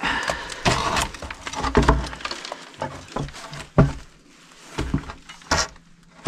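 Wooden plank being handled and shoved into place against brick and stone, giving a run of irregular knocks and scrapes with rustling in between; the sharpest knock comes about four seconds in.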